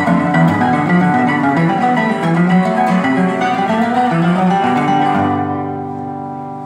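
Seven-string acoustic guitar (violão de sete cordas) played fingerstyle: a fast run of single picked notes and bass lines, then a final chord struck about five seconds in and left ringing as it fades.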